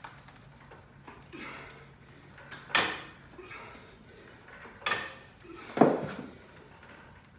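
Belt squat machine knocking and clanking under load during continuous squat reps: three sharp knocks, the last the loudest.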